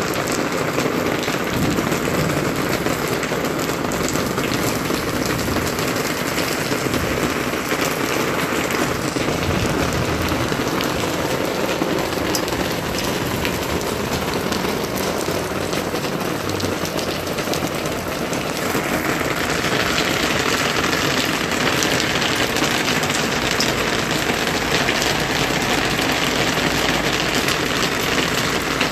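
Heavy rain falling steadily, a dense hiss of drops with scattered patter; about two-thirds of the way through it turns brighter and a little louder.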